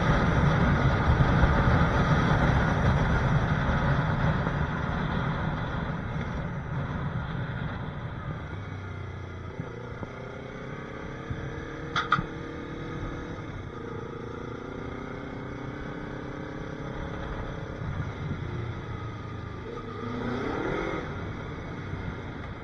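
Yamaha R3's parallel-twin engine running as the motorcycle is ridden, with a loud rush of wind and road noise at first that fades as the bike slows to a low-speed crawl. A sharp click comes about halfway through, and the engine note rises briefly near the end.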